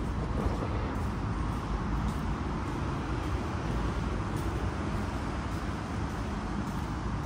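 Steady outdoor urban background noise: a constant low rumble with no distinct events, in the manner of distant road traffic.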